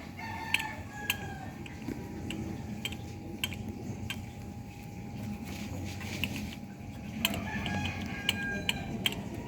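Scattered light clicks and taps over a faint steady tone, with two short spells of high calls, about half a second in and again near the end.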